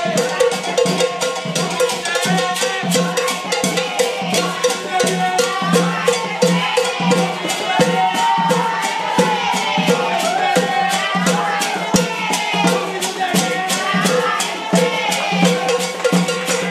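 Brazilian carnival samba music: fast, even shaker strokes over a steady pulsing drum beat, with a melody line coming in around the middle.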